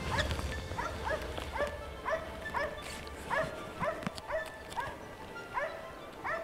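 Moose-hunting dog barking over and over at a steady pace, about two barks a second: the steady bay of a dog holding a moose at bay.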